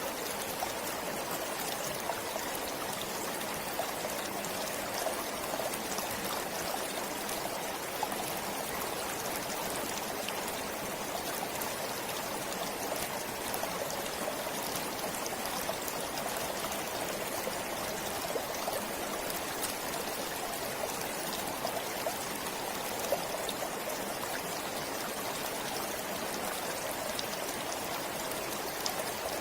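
A forest stream flowing steadily over rocks, with a constant rushing and many small splashes and trickles.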